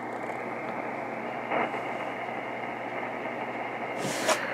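JRC NRD-545 shortwave receiver hissing with steady static on an empty sideband channel around 13270 kHz, its tone narrowing slightly as the filter width is changed. A short burst of hash cuts through about one and a half seconds in, and a louder crackle comes near the end; the interference is suspected to come from an electric fence.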